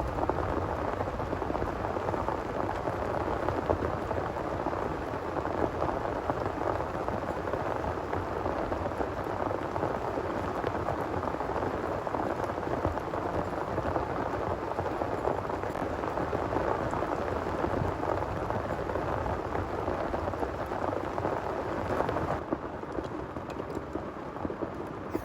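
Heavy rain pouring steadily, with a continuous low rumble beneath it. About three seconds before the end the sound abruptly becomes lighter and quieter.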